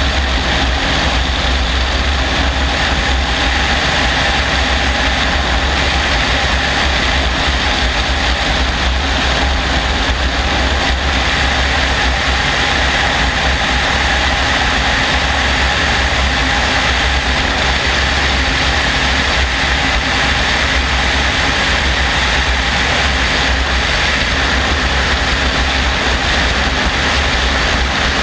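Helicopter in level flight, heard from a camera on its outside: a steady, loud engine and rotor drone with a strong low rumble, mixed with rushing air over the microphone.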